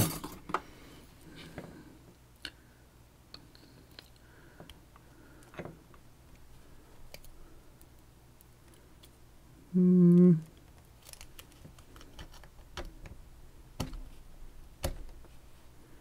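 Sparse small clicks and taps of a pin-tumbler lock and small metal tools being handled, with one short hummed note about ten seconds in.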